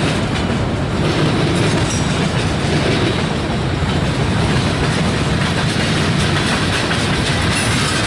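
Freight train of tank cars and autorack cars rolling past: a loud, steady rumble of steel wheels on the rails with repeated clicking.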